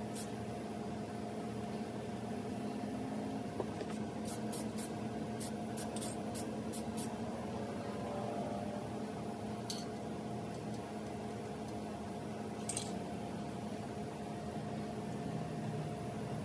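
Aerosol can of matte clear coat sprayed in short puffs: a quick run of about six bursts between four and seven seconds in, then two single puffs later. Under it is a steady background hum.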